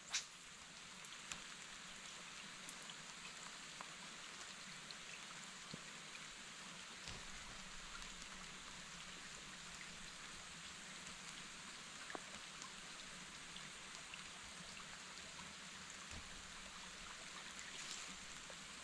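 Steady rain falling, an even patter with scattered single drops ticking close by, one sharper tick right at the start.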